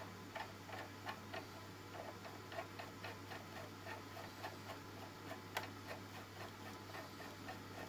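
Light, even clicking, about three clicks a second, as a new oil-burner nozzle is turned by hand into its holder, with one sharper click about five and a half seconds in.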